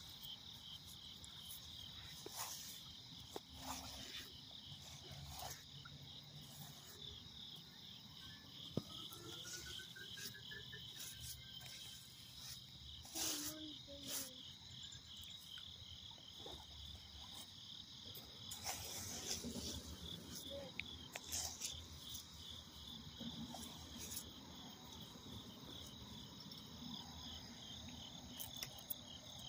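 A steady chorus of night insects chirping in a fast, even pulsing trill, with scattered faint knocks and rustles over it.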